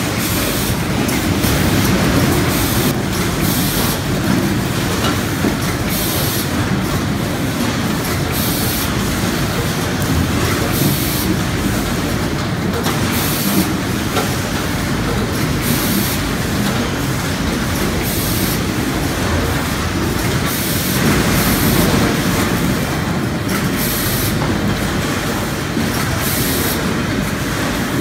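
Onion packing line running: the blue cleated elevator conveyor and AFFELDT AVN 112 weigher make a steady mechanical rumble, with onions rattling and clattering through the machine. Short hisses recur every second or so.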